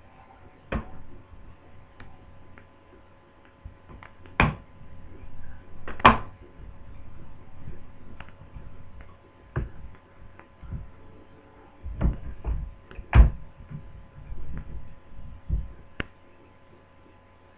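Irregular plastic knocks and clicks from a laptop's casing being handled and fitted back together during reassembly. The loudest knocks come a few seconds apart, with a cluster near the end.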